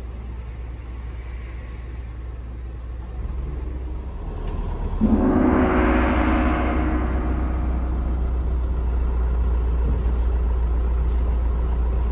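Low, steady hum of the DMV93 dual-mode vehicle's engine, with a single loud ringing, gong-like tone about five seconds in that dies away over a couple of seconds; the engine hum is a little louder after it.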